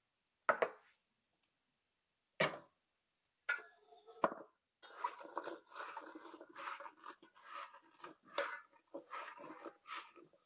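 Kosher salt poured from a measuring cup over sliced cucumbers in a stainless steel bowl, heard as three short bursts, then hands tossing the cucumber slices in the bowl, a continuous uneven rustling and clattering that runs to near the end.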